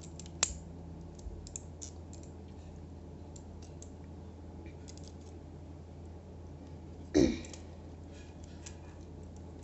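Plastic Lego pieces clicking and rattling as they are handled while the rubber band is taken off and the mechanism pulled apart, with a sharp click about half a second in and a louder brief noise about seven seconds in.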